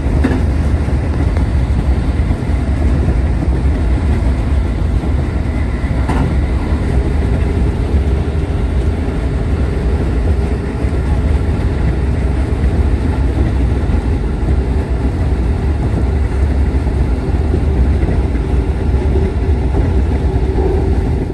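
Passenger train running at speed, heard from inside the car: a steady low rumble of wheels on rail with a short knock at the start and another about six seconds in. A faint steady hum joins about seven seconds in.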